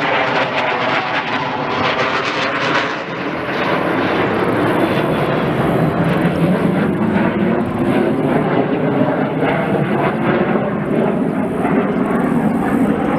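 Aircraft passing overhead: a loud, continuous rushing drone whose pitch slides down over the first few seconds, then settles lower and steadier.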